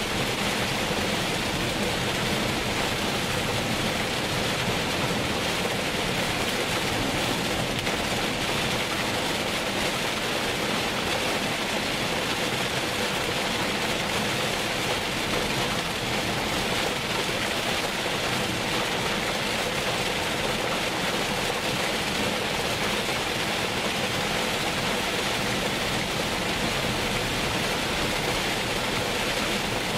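Heavy rain falling steadily, with the hiss of a car driving on a wet road: an even, unbroken wash of noise.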